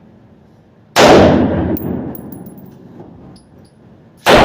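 Two AR-15 rifle shots in 5.56, about three seconds apart, each sharp crack followed by a long echoing decay, with faint high ticks after the first.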